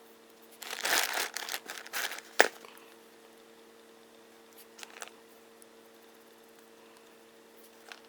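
Crinkling, rustling handling noise for about two seconds, ending in a sharp click, then a few faint clicks, over a steady electrical hum.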